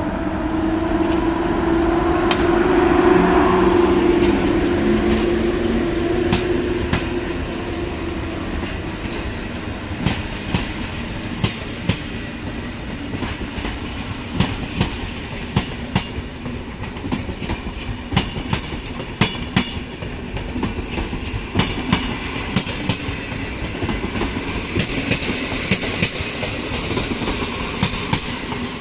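PKP Intercity electric locomotive hauling passenger coaches past the platform: a steady hum from the locomotive as it goes by in the first few seconds, then the coaches' wheels clattering over the rail joints in an irregular run of clicks over a low rumble.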